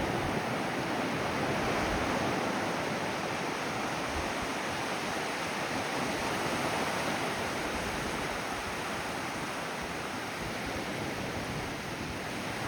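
Ocean waves breaking and washing on the shore, a steady rushing surf.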